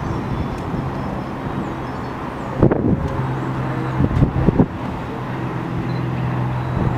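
Steady low drone of distant engines over outdoor traffic noise, broken by a few short sharp crackles about three and four and a half seconds in.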